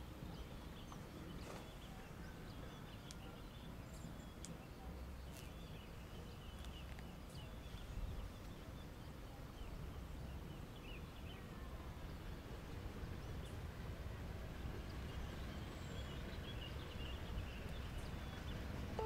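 Faint outdoor ambience: a steady low rumble with scattered faint high chirps from birds or insects.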